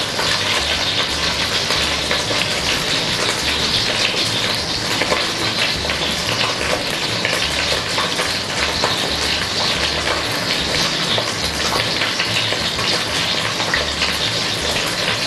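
Hot oil sizzling steadily in a pot as vegetables deep-fry, a dense hiss full of fine crackles.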